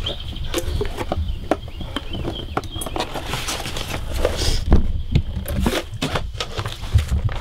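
Rummaging through a wooden crate: papers and fabric shifted by hand, with scattered irregular knocks and clicks, over a steady low rumble.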